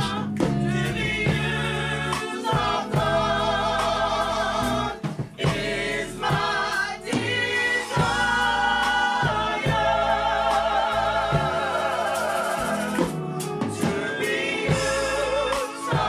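Gospel choir singing a worship song with band accompaniment: several voices hold long notes with vibrato over a steady bass line, with brief breaks between phrases about five and thirteen seconds in.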